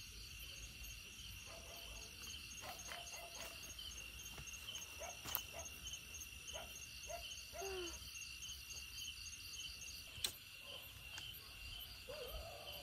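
Crickets chirping steadily in fast repeated pulses, with a few faint short calls underneath and a sharp click about ten seconds in.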